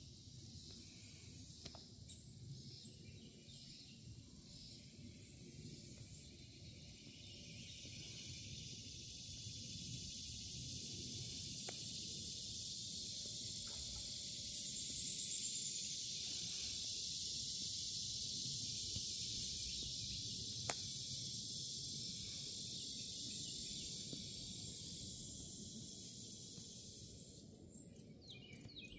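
Insects calling outdoors: a very high buzz that comes in pulses about a second long, roughly every two seconds, over a steady chorus of chirring insects and a low background rumble.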